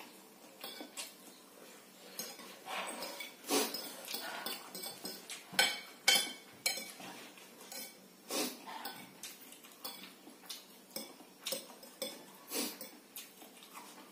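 Metal forks clinking and scraping against a ceramic plate as instant noodles are twirled: a scattered run of short clinks, loudest about six seconds in, with chewing in between.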